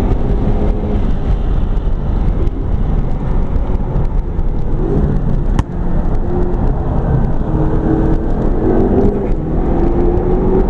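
McLaren 12C's twin-turbo V8 heard from inside the cabin at speed, over road and wind noise. The engine note drops, with a brief dip in level about halfway through, then climbs steadily under acceleration.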